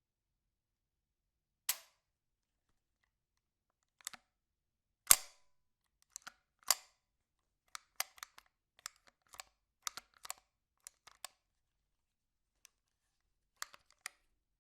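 Ruger 10/22 .22 rifle being handled: a series of sharp mechanical clicks and clacks with pauses between them, the loudest about five seconds in, then a quick run of small clicks in the middle and a couple more near the end.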